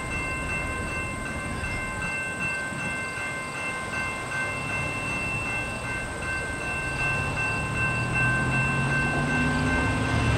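Canadian National freight train rolling by: a steady low rumble under several steady high-pitched ringing tones. A car engine comes up under it near the end.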